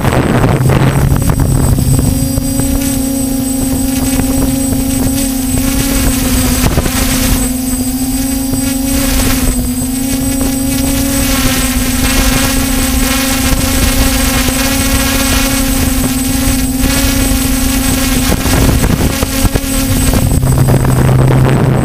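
DJI Flamewheel F550 hexacopter's six electric motors and propellers humming steadily in flight, heard from the onboard camera. The hum steps up in pitch about a second in and drops back near the end.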